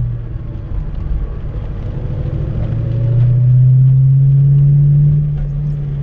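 2004 Mustang GT's 4.6-litre V8 running under light throttle, heard from inside the cabin as a low steady drone. It gets louder for a couple of seconds from about three seconds in, then eases off near the end.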